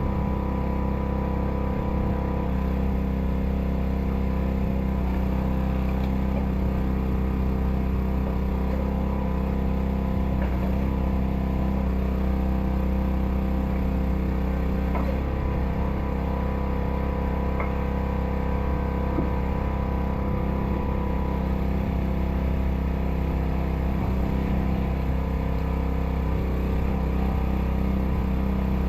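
An engine running steadily at a constant speed, with a few faint knocks and cracks over it.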